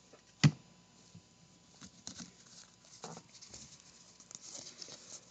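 Trading cards being handled on a table: one sharp tap about half a second in, then scattered soft taps and rustles of cards being shuffled and set down.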